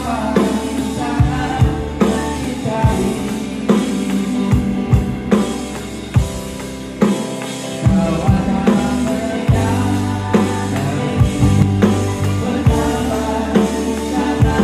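Live band playing a song: a steady beat on an electronic drum kit, with sustained keyboard and guitar notes and a woman singing into a microphone.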